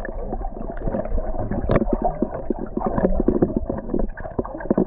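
Muffled underwater water noise heard through a submerged camera housing: a low sloshing rumble with many small clicks and knocks throughout.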